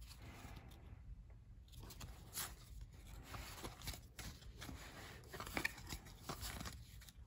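Faint rustle and soft flicks of cardboard trading cards being slid one by one off the front of a handheld stack, a light scrape every second or so.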